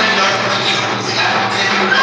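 Loud, steady Sambalpuri folk dance music playing.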